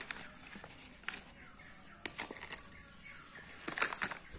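Brown paper food wrapping crinkling and crackling as a rice packet is unfolded by hand, in a few sharp rustles with the loudest burst near the end.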